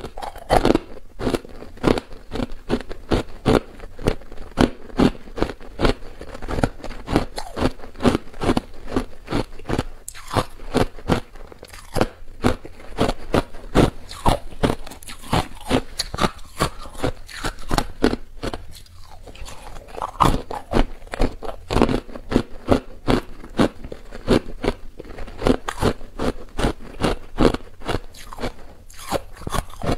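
A person chewing hard clear ice close to a clip-on microphone: a steady run of loud crunches, about three a second, with a short lull a little past the middle.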